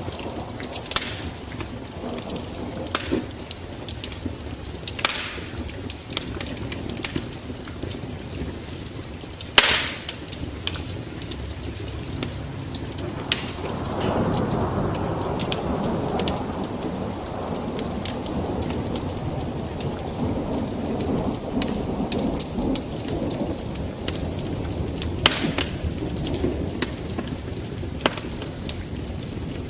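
Wood fire in a fireplace crackling, with sharp pops at irregular intervals over a steady low rush of flame. The flame noise swells for several seconds from about halfway through.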